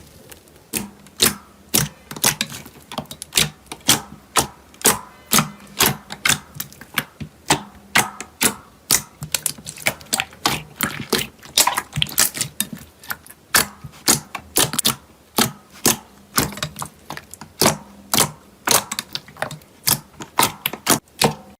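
Slime being pressed and squeezed by hand, giving a quick, uneven run of sharp clicking pops, about two a second.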